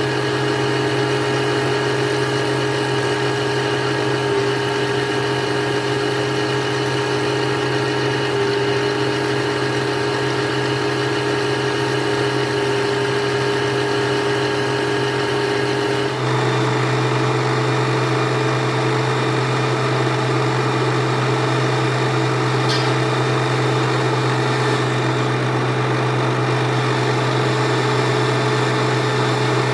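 Metal lathe running steadily with a constant machine hum. About halfway through the hum changes abruptly to a slightly different steady pitch and tone.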